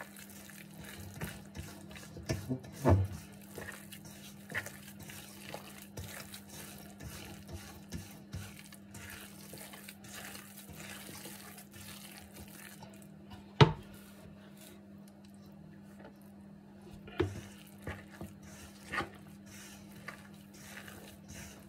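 Hands kneading soft, oily dough in a stainless steel bowl while working in flour: continuous squishing and slapping, with a few sharp knocks, the loudest about 14 seconds in. A steady low hum runs underneath.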